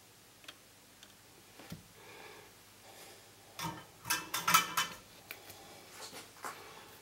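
Sharp light clicks and taps of small metal hand tools being handled, scattered at first, with a quick run of louder clicks a little past the middle and a few more near the end.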